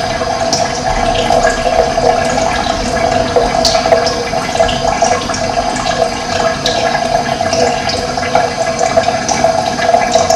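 Running water flowing steadily, with short high bird chirps now and then.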